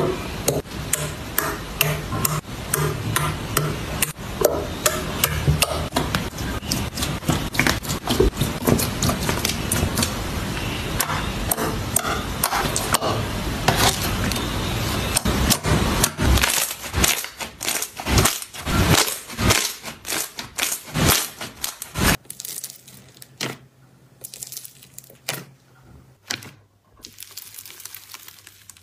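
Crunchy slime being squeezed and poked, giving a dense, steady run of crisp crackles and pops. From about 16 seconds the pops come one by one, and after about 22 seconds they thin out to scattered, quieter crackles.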